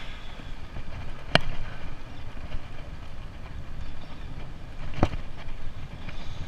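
Wind on the microphone and tyre rumble from a bicycle rolling along an asphalt street. Two sharp knocks come through, a little over a second in and again about four seconds later.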